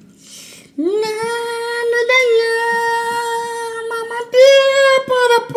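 A high voice singing long held notes. The first note rises into place about a second in and holds steady for about three seconds, then a second, slightly higher note follows.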